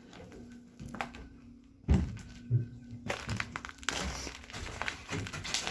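Scattered knocks and crunching of debris as people move about inside a derelict train car, with one heavy thump about two seconds in and irregular crackling after it.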